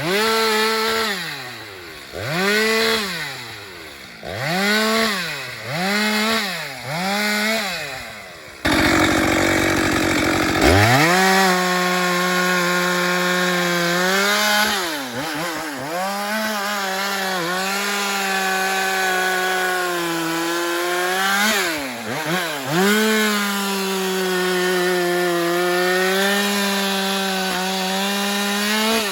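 Husqvarna 394 XP two-stroke chainsaw revved several times in quick bursts, then held at steady high speed through a long cut in wood. The pitch dips briefly twice under load.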